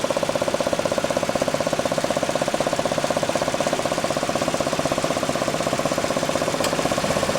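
2008 Chevy Equinox engine running with a steady, rapid, even puttering knock from the top of the engine. The shop traced the knock to cylinder three, where a cracked spark plug had been replaced the day before.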